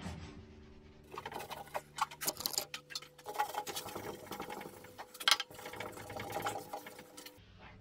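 Cloth rubbing wood colour into a slatted wooden hatch top: a run of irregular scratchy rubbing strokes that cuts off suddenly near the end.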